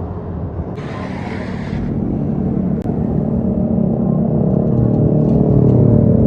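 Tour bus diesel engine rumbling as it approaches, growing steadily louder, with a short hiss of air about a second in.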